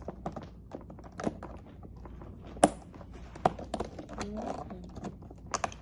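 Toy packaging being worked open by hand: scattered clicks, taps and knocks of cardboard and plastic, with a few sharper snaps, the loudest about two and a half seconds in.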